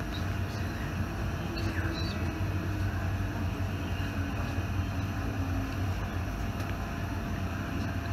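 A 1980s-era passenger train running along the line: a steady low rumble and even rolling noise.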